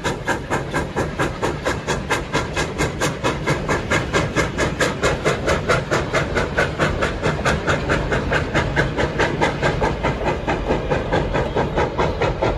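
Steam train passing: Sierra Railway No. 28, a Baldwin 2-8-0, working ahead of its passenger coaches as they roll by. The sound is a steady, even beat of about four sharp, hissing strokes a second.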